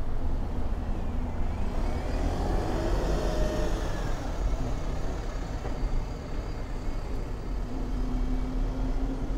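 Street traffic: a steady low rumble, with a motor vehicle passing about two to four seconds in.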